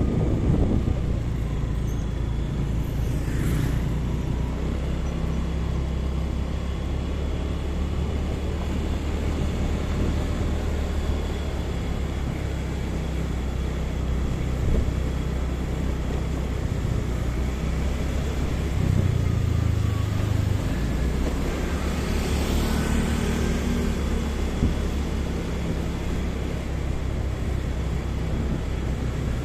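Motorcycle riding through town traffic: a steady low engine and road rumble. Other traffic swells by briefly a few seconds in and again past the middle.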